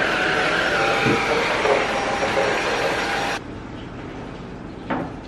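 Cordless stick vacuum cleaner running, starting with a click and cutting off suddenly about three and a half seconds in. A short knock follows near the end.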